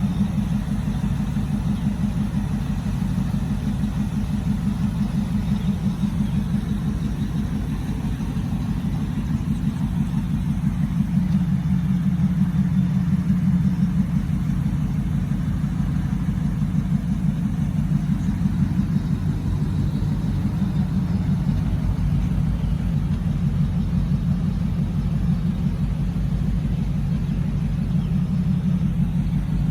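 2002 Ford Lightning's supercharged 5.4-litre V8 idling steadily through long-tube headers and a Bassani cat-back exhaust, an even low rumble.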